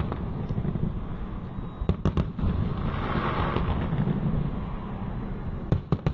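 Aerial fireworks bursting: a run of sharp bangs about two seconds in and again near the end, over a steady low rumble.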